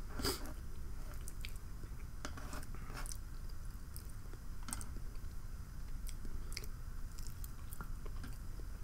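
Close-miked chewing: soft wet mouth smacks and clicks scattered irregularly over a low steady hum.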